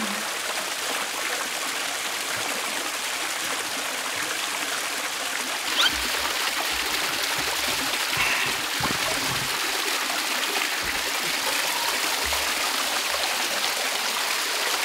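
Water from a small fountain and stone spillway falling and splashing steadily into a concrete pond, a little louder from about six seconds in, as a person wades in and sits under the falling water.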